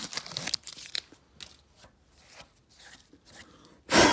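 Crinkling and rustling of freshly peeled blue painter's tape and a gloved hand on the engine's cut crankshaft during the first second, then faint scattered handling clicks, and two loud rustling bumps near the end.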